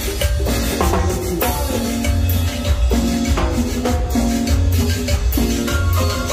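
A live cumbia band playing an instrumental passage, with a steady bass and drum beat, held keyboard notes and shaken percussion.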